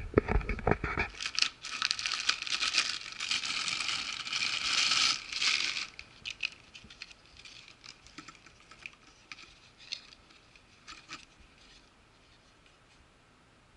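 Plastic packaging crinkling and rustling as an accessory is unwrapped by hand, loudest for the first half, after a few handling knocks in the first second. The rustling then gives way to faint scattered clicks and rustles that die away near the end.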